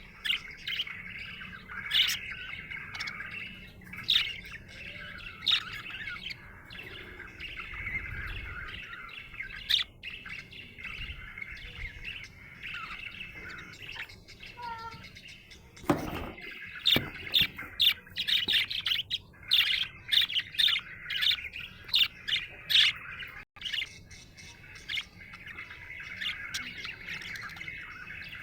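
Budgerigar warbling and chattering continuously, with a dense run of short, sharp chirps in the second half.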